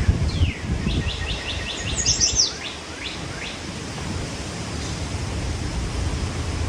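Songbird calling: a quick run of about eight short high chirps about a second in, followed by several falling whistled notes, over a steady low rumble.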